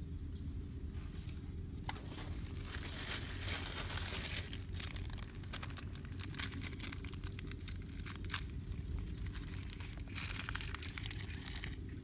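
Plastic bag crinkling and rustling with many small crackles as hands handle it, in two spells, the first about two seconds in and the second near the end. A steady low hum runs underneath.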